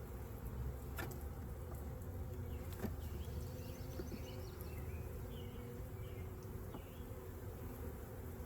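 Honeybee colony buzzing steadily in an open hive, with a few light clicks as the wooden frames are pushed back together, about a second in and again near three seconds.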